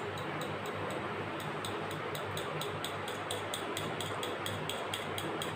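Metal utensil tapping against a ceramic bowl while briskly beating a thick mayonnaise and ketchup sauce, an even ticking several times a second.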